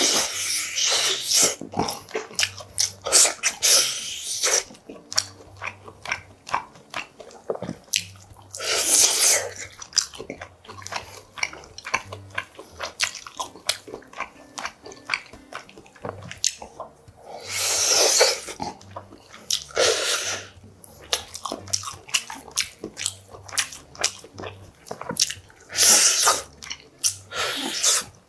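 Close-miked eating sounds: wet, smacking chewing of beef short rib meat gnawed off the bone. Several louder sucking bursts come as the meat is pulled from the rib bones, about a second in, again around 9, 18, 20 and 26 seconds.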